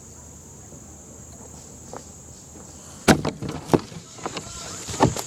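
Insects buzzing steadily, then about three seconds in a rapid string of sharp cracks of airsoft gunfire.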